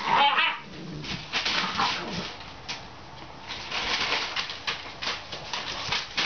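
A litter of pit bull puppies play-fighting, with small growls and whines. Their paws and claws scuffle in quick bursts on a hard floor strewn with newspaper.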